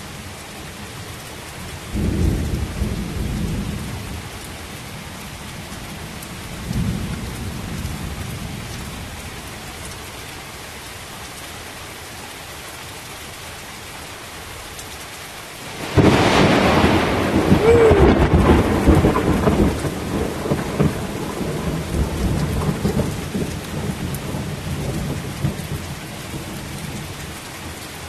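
Heavy rain falling steadily through a thunderstorm. Two low rumbles of thunder come in the first several seconds, then about halfway through a sudden loud thunderclap cracks and rumbles on for several seconds.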